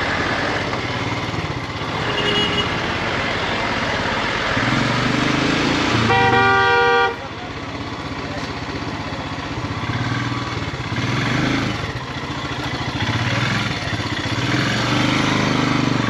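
Royal Enfield Himalayan motorcycle's single-cylinder engine running in slow traffic, with wind noise. A vehicle horn sounds loudly for about a second some six seconds in, after a short toot about two seconds in.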